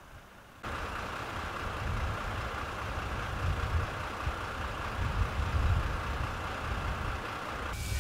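Parked fire engines' diesel engines running steadily, a low rumble that starts abruptly under a second in.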